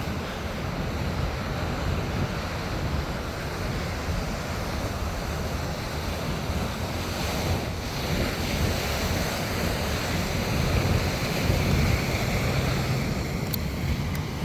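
Ocean surf washing onto the beach, with wind buffeting the phone's microphone.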